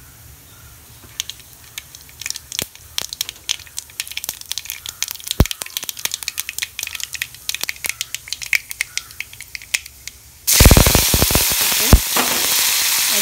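Mustard and cumin seeds popping in hot coconut oil, with sharp separate cracks that grow into a busy crackle. At about ten and a half seconds a loud, steady sizzle starts suddenly as curry leaves hit the hot oil.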